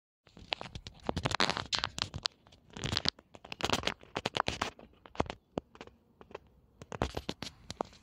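Irregular scratching and crackling: fast runs of clicks and rustling bursts, thinning out after about five seconds and picking up again around seven seconds in, typical of handling noise on a handheld phone's microphone.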